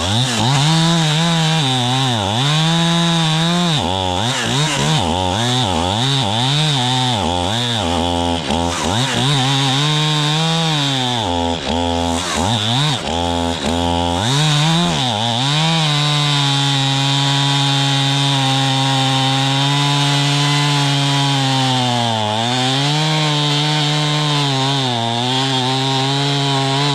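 Two-stroke chainsaw cutting through a large juniper trunk. Its engine speed rises and falls over and over for the first fifteen seconds or so, then holds steady at high speed, dipping briefly twice near the end.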